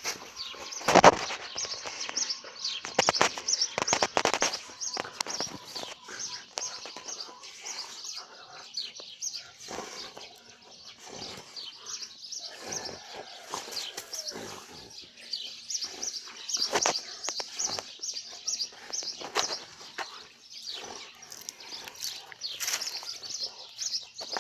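Small birds chirping, with a Doberman chewing and tearing at something on the ground in irregular bouts, and a sharp knock about a second in.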